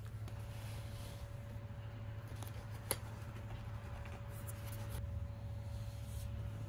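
Soft rustling and scraping of an album's card packaging and plastic sleeve being handled, with one sharp click about three seconds in, over a steady low electrical hum.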